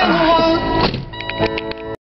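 Music playing: a gliding melodic line, then held notes with several quick struck notes in the second second, cut off abruptly at the end.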